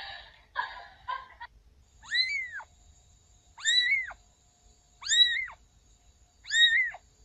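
A cat meowing four times, evenly spaced, each a short high-pitched cry that rises and then falls. Before the first meow there is a brief stretch of voice-like sound.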